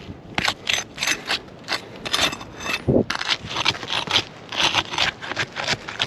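Asphalt three-tab shingles being pried loose, with rapid, irregular scraping and crackling strokes as the sealed-down tabs are broken free, and one heavier knock about three seconds in.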